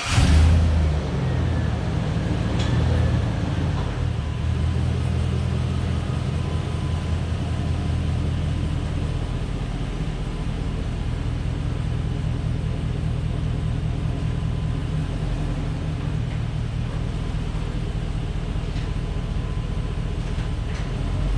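1951 Mercury's engine running steadily, a deep even rumble with no rise or fall in pitch.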